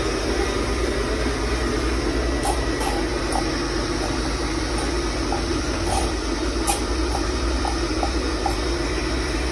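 Xiaomi Mi Robot Vacuum-Mop Essential running: the steady noise of its suction fan, with faint scattered clicks.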